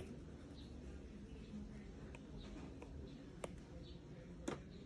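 iPad stylus tip tapping on the tablet's glass screen: two sharp taps, about 3.5 and 4.5 seconds in, the second louder, with a few fainter touches, over low steady background noise.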